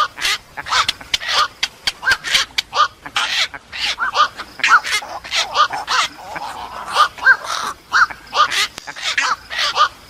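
Recorded black-crowned night heron calls played back as a trapping lure: short calls repeated in quick succession, a few a second, often in pairs or threes.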